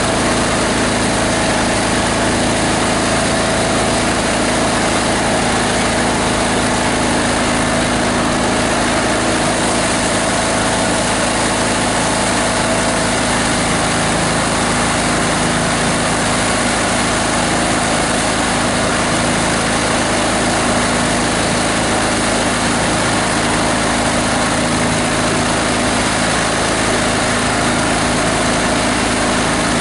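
A plastic-waste grinder's 18 HP diesel engine running at a steady speed.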